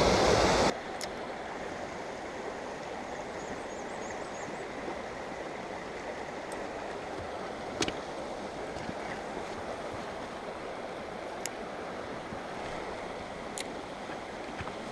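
Small mountain stream running over rocks: a steady rush of water. A louder rush cuts off suddenly less than a second in, and a few faint sharp clicks come through later.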